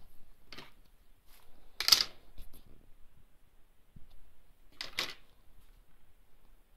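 Handling noise: three short rustling scrapes of plastic being moved, the loudest about two seconds in, with quiet between them.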